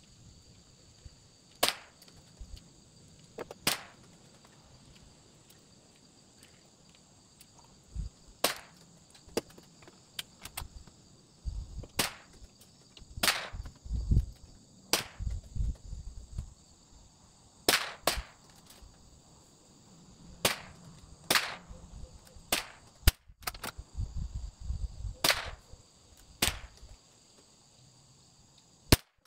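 Bergara BMR bolt-action .22 LR rimfire rifle firing and being worked at the bench: sharp cracks and clicks at irregular intervals, the loudest about three-quarters of the way in, with a few dull handling thumps between them. A steady high insect buzz runs underneath.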